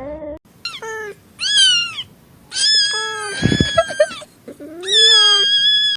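A cat meowing four times in a high, thin voice: two short meows, then a long drawn-out one and a final long one.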